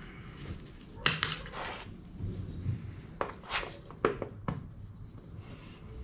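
Hands and tools knocking and scraping against a plastic holding tank and the steel frame members around it: a handful of short clicks and knocks with a brief scrape, the sharpest about one and four seconds in.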